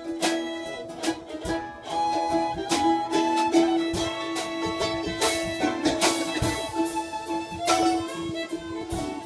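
Live bluegrass band playing an instrumental passage: fiddle carrying the melody over mandolin and strummed acoustic guitar, with drum kit and cymbal hits that grow louder about five seconds in.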